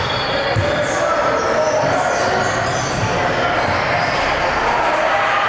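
Basketball bouncing on an indoor gym court during play, with a background of players' and spectators' voices.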